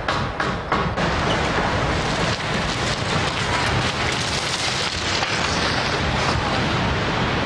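A few quick hammer blows on timber, about three a second, in the first second; then a steady rushing noise of wind buffeting the camcorder microphone as it moves outdoors.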